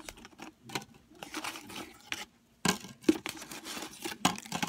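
Pringles potato chips crunching and crackling in irregular sharp snaps.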